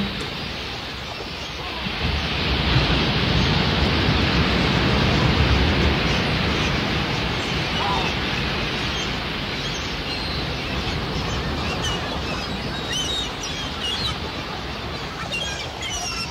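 Ocean-surf sound effect: a wash of noise that swells over the first few seconds and then slowly ebbs. From about eight seconds in, short high chirps like seabird calls sound over it.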